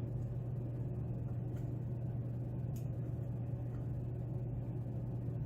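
A steady low hum with a few faint ticks, which are the small sounds of a lock pick working the pins of a pin-tumbler lock.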